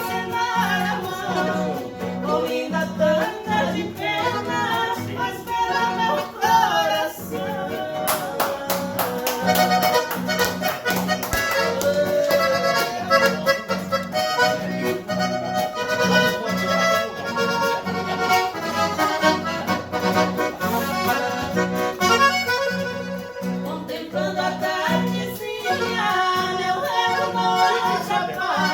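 Accordion (sanfona) playing a tune over a steady, repeating bass beat.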